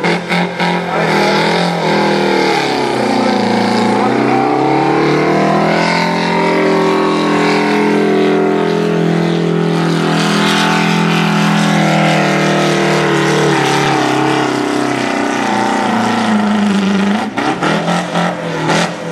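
Diesel farm tractor engine working hard at full throttle, dragging a weight-transfer pulling sled that gets heavier as it goes. Its pitch sags about three seconds in, climbs back and holds high and steady for about ten seconds, then drops away near the end as the tractor stops.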